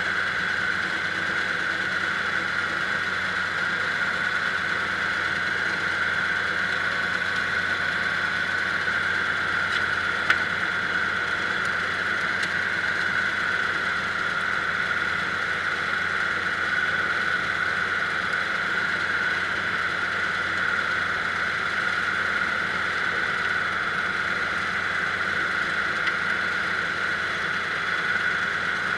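Kubota diesel engine running steadily at an even speed, with a steady high whine over it.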